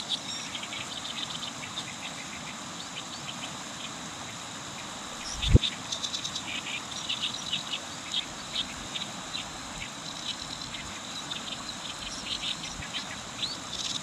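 Oriental reed warbler singing its harsh, chattering song, short grating notes in quick bunches, over the steady noise of a shallow river running over stones. A single knock about five and a half seconds in.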